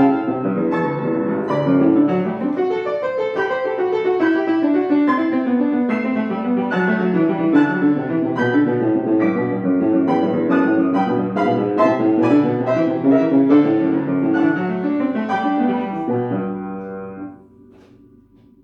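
Solo piano playing rapid running passages of a classical study. Near the end it closes on a held chord that dies away.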